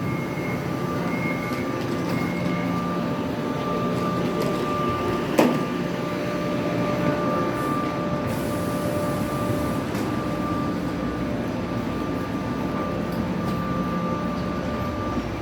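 Kaohsiung MRT train running, a steady rumble with a steady whine from its motors, and one sharp click about five seconds in.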